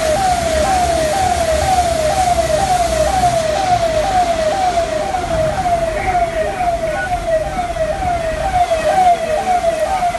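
Electronic siren sounding in a fast repeating sweep, about two sweeps a second, over a steady low rumble.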